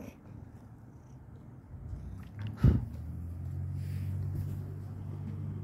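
A loud bump close to the microphone about halfway through, then a cat purring steadily.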